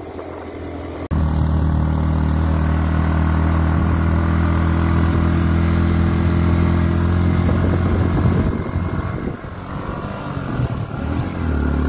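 Sport motorcycle engine running at a steady cruising speed while riding, a steady low drone. It comes in abruptly about a second in and turns rougher and more uneven after about eight seconds.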